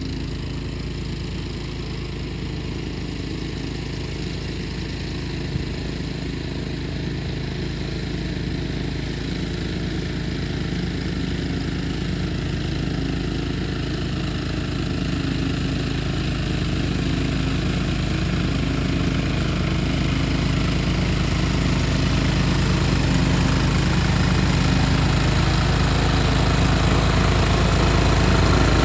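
Cub Cadet 760 ES 33-inch walk-behind mower engine running steadily while cutting grass, growing louder as the mower comes closer.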